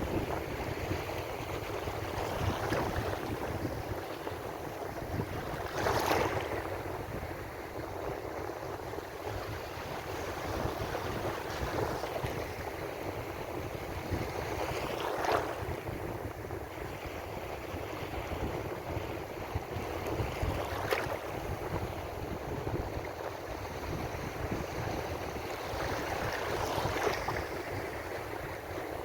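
Ocean surf washing continuously on the shore, with a louder wave breaking four times, several seconds apart.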